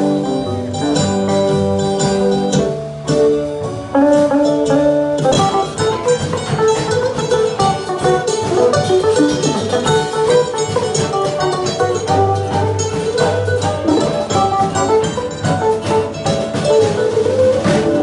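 Live country/bluegrass string band playing an instrumental: fast picked guitar over an upright bass, with a fiddle.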